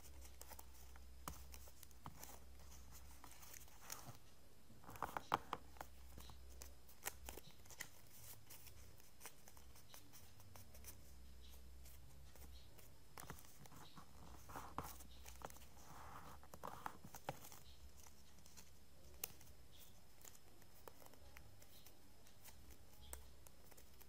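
Origami paper being folded and creased by hand: soft, scattered crinkles and taps, loudest about five seconds in, over a faint low hum.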